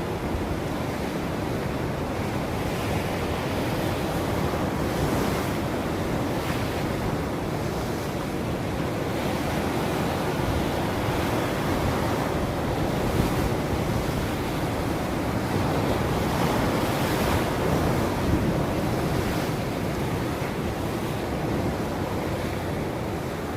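Ocean waves washing onto a shore, a continuous surf rush that swells gently every few seconds, with some wind noise on the microphone.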